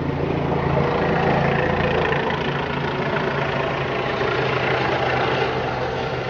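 Police helicopter hovering overhead: a steady drone of engine and rotor. A low hum fades about two seconds in, leaving a broad rushing noise.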